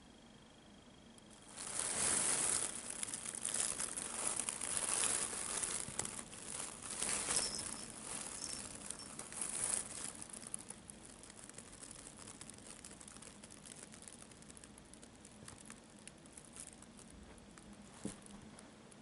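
Thin plastic bag crinkling and rustling as a kitten shifts about inside it. The crinkling starts about a second and a half in and is loudest for the next several seconds, then settles into softer, sparser rustles with a small tap near the end.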